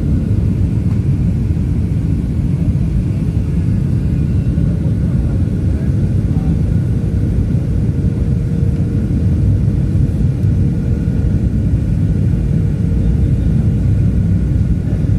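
Inside an airliner cabin in flight: the jet engines and airflow make a steady low rumble, with a faint steady hum above it.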